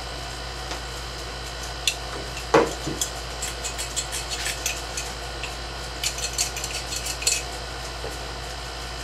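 Scattered metallic clinks, taps and rattles of small parts and hand tools being handled at a car's carburetor, with one sharper knock about two and a half seconds in, over a steady background hum. The engine is not running.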